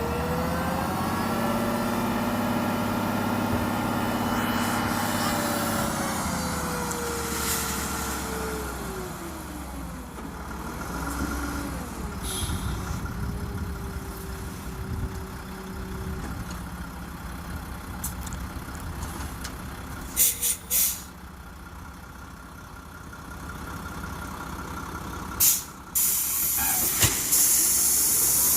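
Diesel gravel dump truck running, its engine revving up and dropping back over the first several seconds, then running steadier. Short sharp air hisses from the truck's air system come twice in the second half, with a longer hiss near the end.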